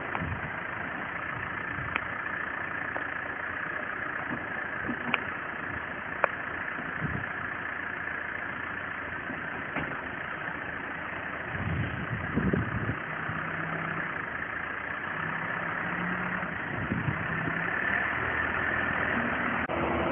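Telehandler's diesel engine running steadily while it handles straw bales, with low rumbling swells about twelve seconds in and again near seventeen seconds, and a few sharp clicks early on.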